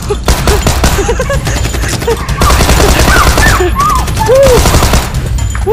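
Rapid machine-gun fire sound effects laid over a toy water-pistol fight, in quick bursts that run together into continuous fire about halfway through. Short rising-and-falling cries sound over the shots.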